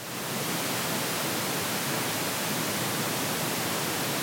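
Pink-noise test signal from a surround-sound speaker check: a steady, even hiss that swells in quickly at the start.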